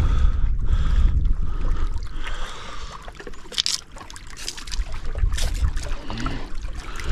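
Wind rumbling on the microphone over water washing and trickling among breakwater rocks, with a couple of short splashy hisses about three and a half and five and a half seconds in.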